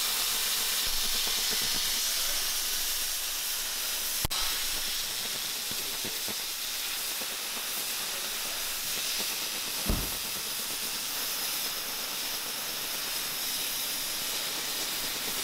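Steady loud hiss of a CNC cutting torch cutting through metal plate. A sharp click about four seconds in and a short thump near ten seconds.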